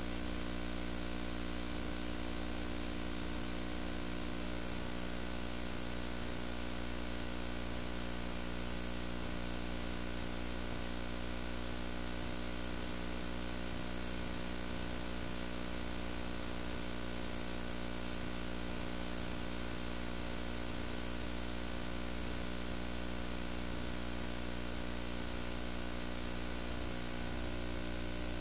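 Steady electrical hum with hiss, unchanging throughout, with no pulsing heartbeat in it.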